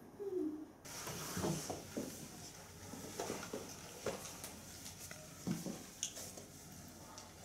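Scattered soft taps and rustles of hands and nylon track-jacket sleeves moving during sign language, over a room hiss. There is a brief falling tone near the start.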